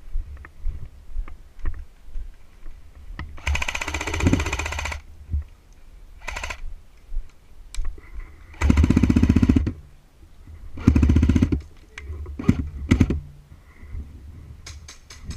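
Airsoft electric gun firing on full auto in three bursts of rapid shots: a longer burst a few seconds in, then two more close together past the middle. Scattered clicks and knocks come between the bursts.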